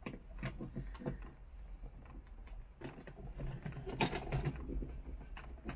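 Hands working among cables and fittings in a cramped boat engine bay: a scatter of clicks, knocks and rattles, with a quick cluster of knocks about four seconds in, over a low steady hum.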